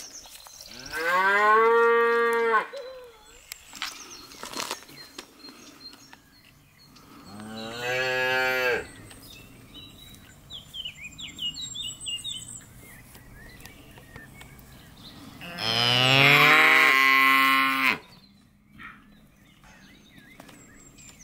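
Calves mooing: three long calls, each rising at the start and then held, the second quieter and the last the longest and loudest.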